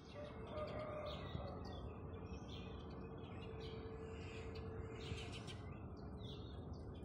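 Several small birds chirping, one short call after another, over a low, steady background rumble.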